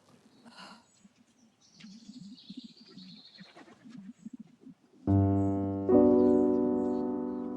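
Faint pigeons cooing, then piano music comes in about five seconds in: a loud sustained chord, followed by a second chord under a second later.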